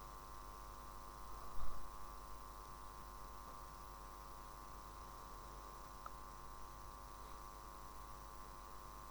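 Steady electrical hum made of several even tones, with a short, louder sound about a second and a half in.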